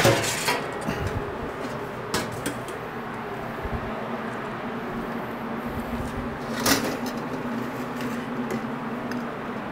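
Commercial kitchen room tone: a steady low hum, with a few sharp clicks and knocks of utensils or containers, one at the start, one about two seconds in and a louder one just before seven seconds.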